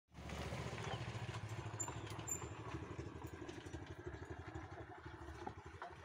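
An engine running steadily with an even pulsing rumble, slowly getting quieter, with a few faint clicks near the end.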